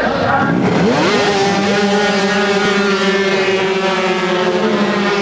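A field of 250cc two-stroke Grand Prix racing motorcycles leaving the start together, revving hard. Several engine notes climb in pitch within the first second, then hold steady at high revs.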